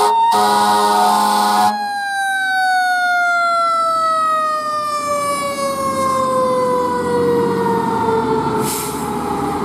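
Fire engine's air horn blasting along with its siren until it cuts off a little under two seconds in. The siren then winds down in one long, slowly falling wail as the truck drives away. A brief hiss comes near the end.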